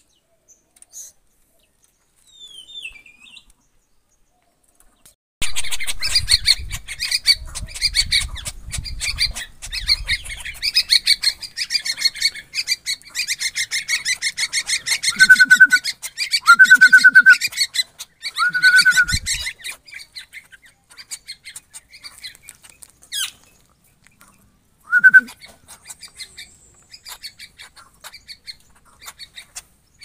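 Yellow-vented bulbul calling: a dense run of rapid chirps begins about five seconds in, with a few loud, drawn-out calls in the middle and one more later, then scattered chirps.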